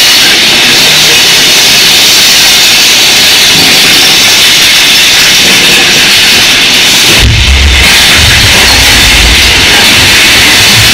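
Loud, distorted rushing roar of the mine train ride in the tunnel; about seven seconds in, deep rumbling booms of the mine explosion effect set in, with the ride's show music and effects mixed in.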